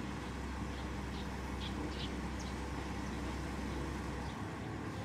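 Mobile crane's diesel engine running steadily with a low drone while it holds a suspended load. A few faint, short, high chirps sound between about one and two and a half seconds in.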